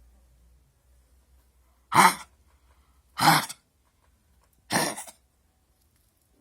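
Pet dog coughing: three short coughs about a second and a half apart. The owner does not know what is causing the cough.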